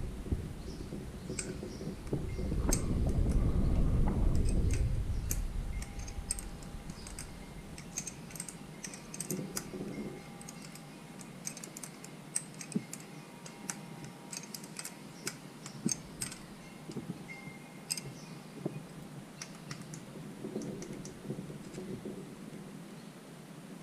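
Scattered light metallic clicks and taps from hand tools and small engine parts being handled, with a low rumble from about two to five seconds in.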